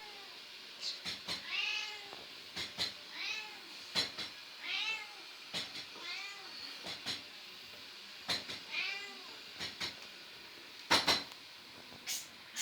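Sharp knocks, mostly in pairs, each answered a moment later by a short meow from a domestic cat; the knock-and-meow exchange repeats about six times, with the loudest pair of knocks near the end.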